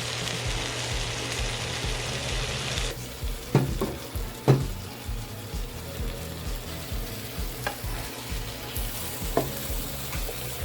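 Fish curry sizzling in a pan as the sardine pieces cook in it, louder for the first three seconds and then softer. A few sharp knocks of a utensil against the pan sound through it, the loudest about four and a half seconds in.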